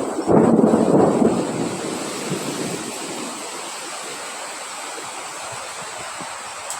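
Wind blowing: a strong gust in the first second or so, then easing into a steady rush.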